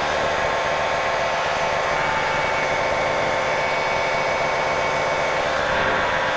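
Light airplane's piston engine and propeller droning steadily in cruise flight, heard from inside the cockpit.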